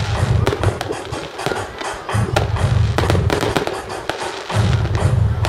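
Aerial fireworks shells bursting in a professional display: many sharp bangs and crackles in quick succession, with music playing underneath.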